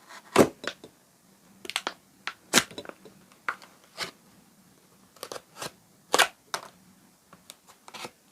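Sharp clicks and snaps of a Milwaukee Fastback folding utility knife being handled, a dozen or so at irregular intervals. The loudest come about half a second, two and a half seconds and six seconds in.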